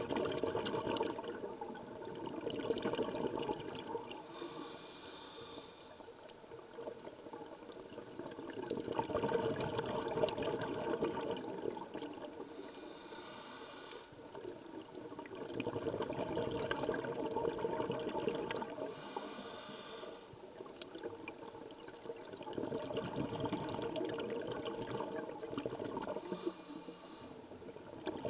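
Scuba diver breathing through a regulator, heard underwater: four short hissing inhalations about seven seconds apart, each followed by a longer, louder rush of exhaled bubbles.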